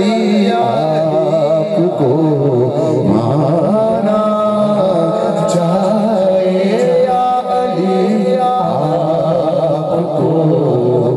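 Devotional singing: a voice singing long, melismatic lines with vibrato, holding some notes steady through the middle.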